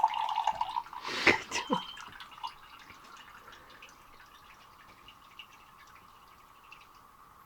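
Water running briefly and stopping, then a few sharp knocks and clatter, then faint scattered clinks over a low steady hum.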